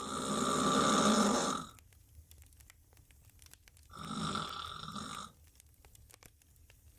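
A woman snoring loudly, lying on her back with her mouth wide open: two snores about four seconds apart, the first longer and louder.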